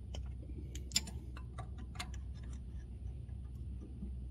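Irregular small metallic clicks and taps as copper tubing is worked into a filter drier's fitting, over a steady low rumble.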